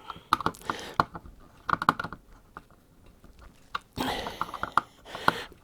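Small irregular clicks, creaks and scrapes of a screwdriver turning the clamp screws of a screw terminal down onto ferrule-crimped wires.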